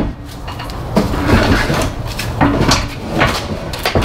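Steel mini pallet jack being pulled out over a cargo van's rear floor by its handle: repeated metal clanks, knocks and scraping rattles.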